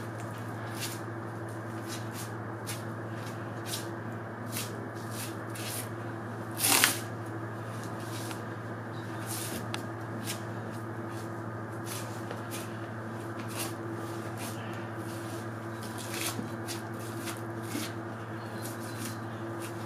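Butcher's knife slicing through hide and membrane on a hanging deer carcass, with skin being pulled and peeled away: a run of short, soft cutting and tearing sounds, and one louder, sharper sound about seven seconds in. Under it runs a steady refrigeration hum from the cold room.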